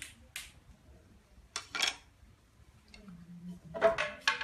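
Wooden silk hand loom being worked: a few separate clacks and knocks as the beater and shuttle move, with quiet gaps between them.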